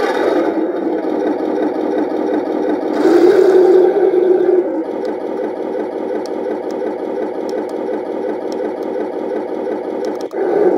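HengLong RC Sherman tank's sound unit playing a simulated tank engine idling through its small built-in speaker, a steady rhythmic chug. About three seconds in it swells into a louder, noisier surge for under two seconds, then settles back to idle.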